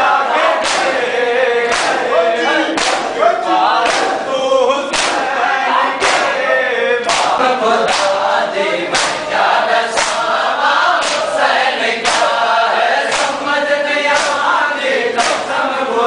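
Crowd of mourners doing matam: chest-beating in unison with a sharp slap about once a second, under a noha chanted by a group of men's voices.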